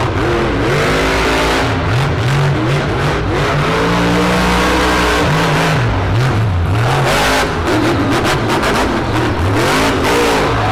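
Monster truck's supercharged V8 revving hard, its pitch rising and falling again and again as the driver works the throttle.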